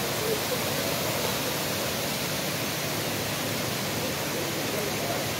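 Steady rush of spring water flowing over rocks and small cascades.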